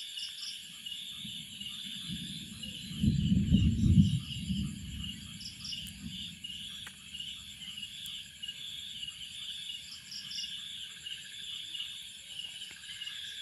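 A steady, high-pitched insect chorus chirring in quick pulses from the roadside forest, with a brief low rumble about three seconds in.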